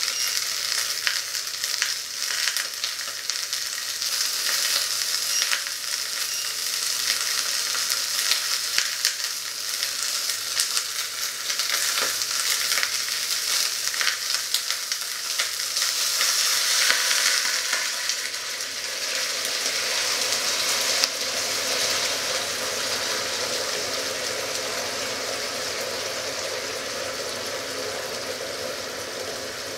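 Chicken pieces sizzling and crackling as they fry in a pot. Past halfway, liquid is poured in and the crackle gives way to a softer, steady bubbling simmer.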